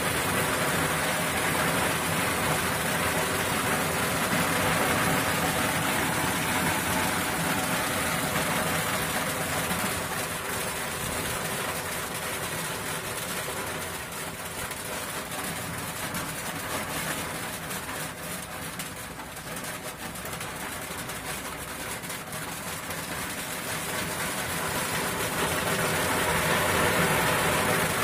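A motor running steadily: a constant rushing noise with a faint even hum under it, easing a little midway and swelling again near the end.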